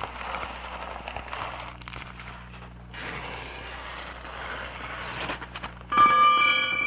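Soundtrack of a pulsing, noisy rush over a steady low hum. About six seconds in, a sudden struck, ringing tone cuts in as the loudest sound and then fades.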